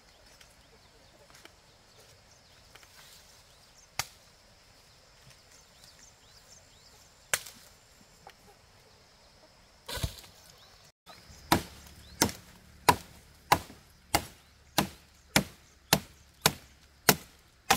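Chopping strikes on wood: a few scattered blows, then a steady run of about a dozen chops, roughly one every 0.6 seconds, through the second half.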